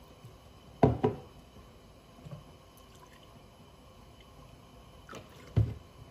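A few dull knocks: a quick pair about a second in and a single one near the end, over faint room noise.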